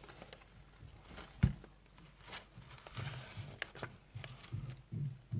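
Handling noise: a notebook being picked up and leafed through, with scattered small taps and rustles and one sharp knock about one and a half seconds in.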